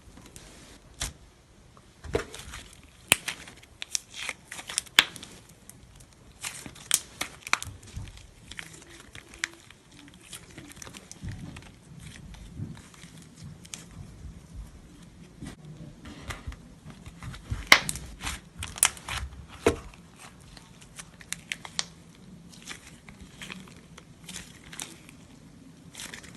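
Slime being squeezed and stretched by hand, making irregular sticky crackles and pops, in clusters with a quieter stretch in the middle.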